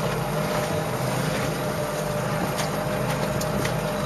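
A small sailboat's motor running steadily under way, a constant low drone over a steady hiss.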